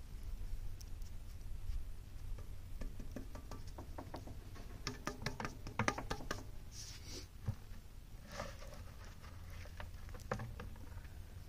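Hands working and patting wet clay on a wooden board, giving a run of light taps and clicks that is densest between about three and seven seconds in, over a steady low rumble.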